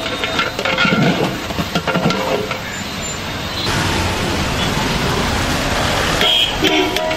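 Street traffic noise with short vehicle horn toots near the end, over metal clinks and scrapes of a long ladle in a large aluminium cooking pot.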